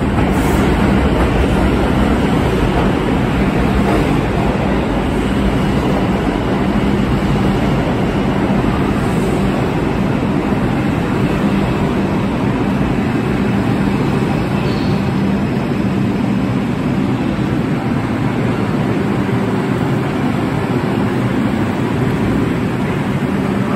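R142 subway train rolling into an underground station along the platform, its steel wheels running loudly on the rails with a steady low hum, easing off a little as it slows.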